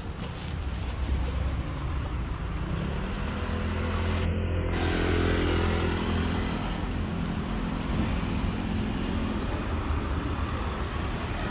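Street traffic with a motor vehicle's engine running close by, growing louder to a peak about five seconds in and then easing off as it passes, over steady traffic noise.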